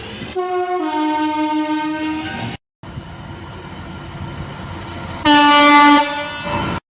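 Train horns: a two-tone horn sounding a higher note that steps down to a lower one, then, after an abrupt cut, the rumble of a train and a second, louder horn blast about five seconds in.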